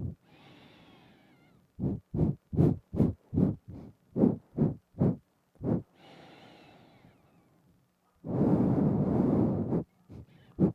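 Close nose breathing into a binaural microphone. A faint breath in is followed by a quick run of about ten short nasal puffs, two to three a second. After a pause, a long, loud breath out through the nose comes about eight seconds in.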